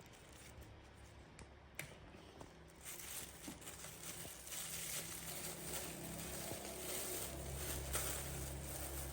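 Plastic medicine bag crinkling and rustling as it is handled and pulled open, starting about three seconds in.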